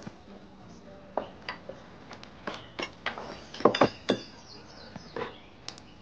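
Glassware and utensils clinking and knocking on a café counter as drinks are made: a scatter of short, sharp clinks, a cluster of them a little past halfway being the loudest.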